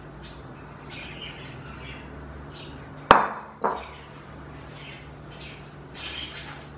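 A gloved hand squishing and kneading a soft mashed-potato and breadcrumb mixture in a glass bowl, with soft wet rustling throughout. About three seconds in come two sharp clinks of dishware against the glass bowl, half a second apart.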